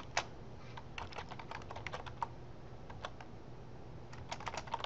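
Typing on a computer keyboard: runs of quick, irregular keystrokes, thinning out about halfway through, then a faster flurry near the end.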